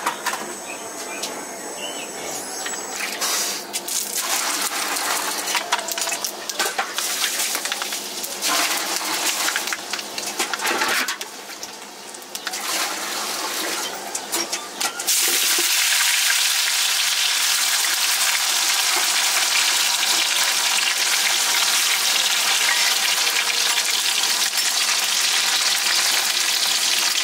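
Food sizzling in hot oil, starting suddenly about halfway through and then going on steadily. Before that, scattered knocks and clatter of kitchen work.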